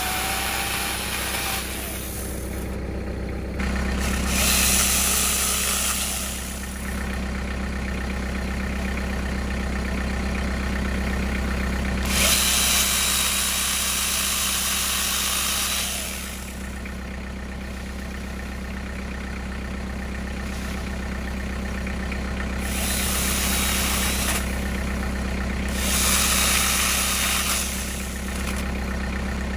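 Cordless angle grinder with a chainsaw attachment running in several bursts of a few seconds each as it cuts through tree limbs, the chain's high whine rising with each cut. A steady low engine idle runs underneath throughout.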